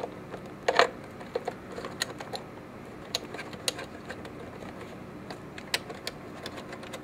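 Scattered light clicks and knocks of plastic and metal as a DVI cable plug is pushed into the back of a computer monitor and the monitor is handled, the loudest knock under a second in.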